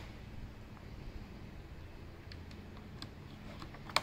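A few faint handling clicks on a PCP bullpup air rifle, then one sharp metallic click near the end as its cocking lever is worked between shots.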